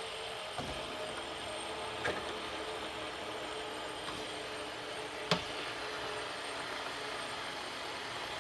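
Several ball-bearing fidget spinners spinning at once, a steady soft whir with faint humming tones. A few light clicks break in, the sharpest about five seconds in.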